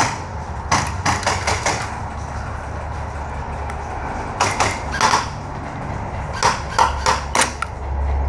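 Airsoft guns firing, short runs of sharp clacks in three bursts: several quick ones about a second in, more around four and a half to five seconds, and another run around six and a half to seven and a half seconds, over a low steady rumble.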